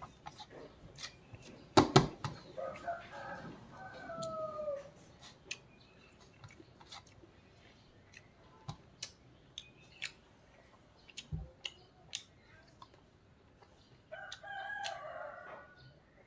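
A rooster crows twice, once about three seconds in and again near the end. Between the crows come scattered light clicks and taps from eating by hand out of a steel bowl, with a sharp double knock about two seconds in.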